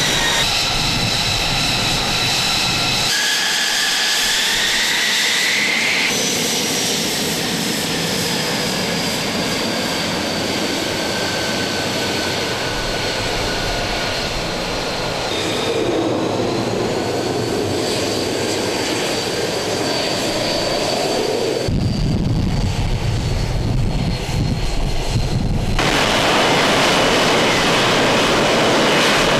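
F-35B's F135 jet engine running: a high whine over a steady rush, its tones slowly falling and rising, with the sound changing abruptly several times.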